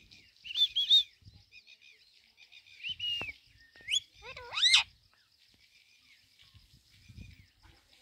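Rose-ringed parakeet calling: a quick run of shrill chirps about half a second in, a short held note near three seconds, then a loud rising squawk around four to five seconds.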